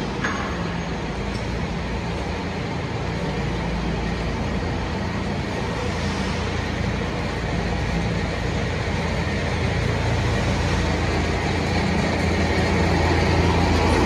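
Crawler rice combine harvester's engine running steadily as a low hum with a wash of machine noise, growing gradually louder toward the end as the machine comes closer.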